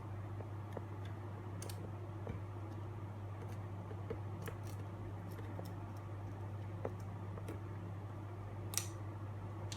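Scattered light clicks and taps of a small screwdriver and tiny screws as the hard-disk bracket screws are taken out of a laptop, the sharpest click near the end, over a steady low hum.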